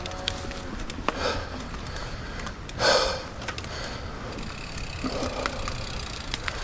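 Mountain bike riding through overgrown brush on a muddy trail: scattered snaps and ticks of twigs and the bike, with two louder rushes of noise about one and three seconds in, over a steady low rumble.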